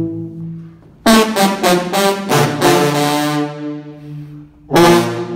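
A section of eight sousaphones playing together: a soft held note fades out, then about a second in the section comes in loud with a run of short punched notes into a long held chord that dies away, and comes in loud again near the end.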